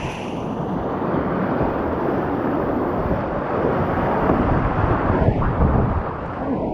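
Loud, steady rush of whitewater from a creek rapid, heard from a kayak running it.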